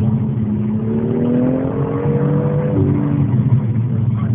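BMW M3 engine heard from inside the cabin, accelerating on a track: its pitch climbs for about two and a half seconds, then drops sharply about three seconds in, over a steady low road and engine rumble.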